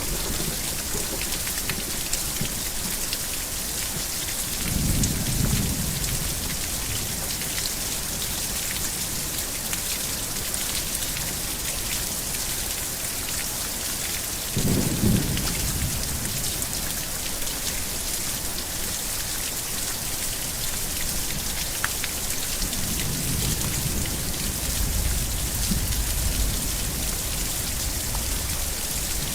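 Heavy rain falling steadily, with thunder rumbling three times: once about five seconds in, a sharper clap about fifteen seconds in, and a longer rumble near the end.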